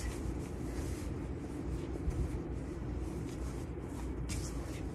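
Faint rustling of cotton fabric as hands smooth and tuck the overlapping flaps of a pillow cover, over a steady low hum.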